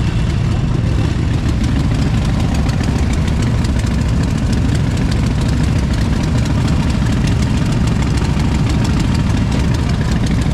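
Vehicle engines idling with a steady low rumble.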